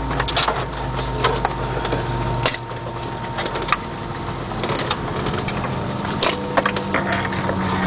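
Cabin noise of an Airbus A320 with IAE V2500 engines taxiing: a steady engine hum with frequent sharp clicks and rattles. The low rumble drops about two and a half seconds in.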